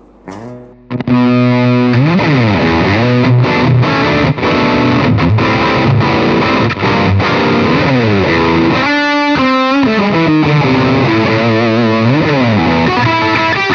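Electric guitar played through a Caline Jaguar Classic High Gain Distortion pedal with the gain at about three o'clock: loud, heavily distorted riffs and held notes, starting about a second in, with notes sliding down and up the neck.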